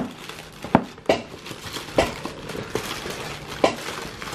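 Clear plastic packaging sleeve around a tote bag crinkling and crackling as it is handled, with a handful of sharp, irregular crackles.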